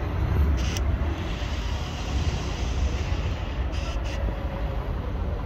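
Steady low outdoor rumble, like distant traffic or wind, with a few brief faint clicks about a second in and near four seconds in.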